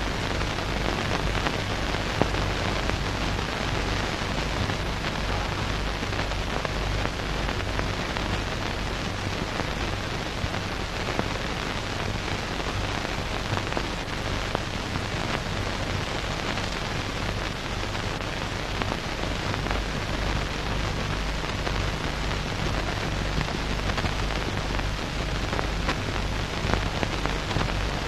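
Steady rain, an even hiss with fine pattering, over a steady low hum.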